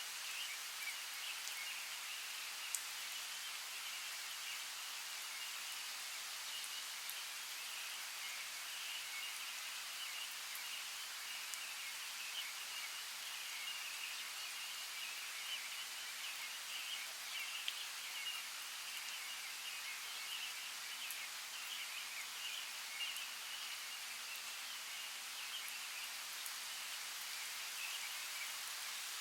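Rainforest ambience: a steady hiss with a busy, continuous band of high chirping and a few scattered sharp ticks.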